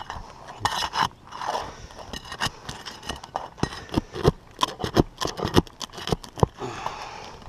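Metal nail bar scraping under roof shingles and prying at roofing nails: an irregular run of sharp clicks, knocks and scrapes.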